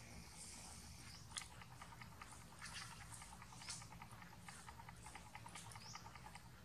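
Long-tailed macaque chewing a small piece of food: a run of faint, quick, wet clicks, several a second.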